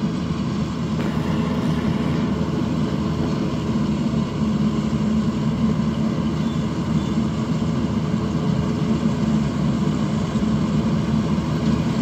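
Combine harvester's engine running steadily as it cuts rice, a continuous drone.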